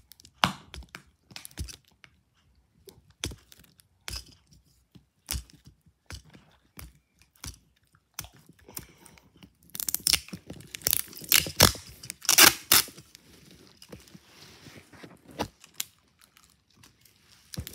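Hands handling paper and tape: scattered small clicks and taps, then about ten seconds in a few seconds of loud crinkling and tearing.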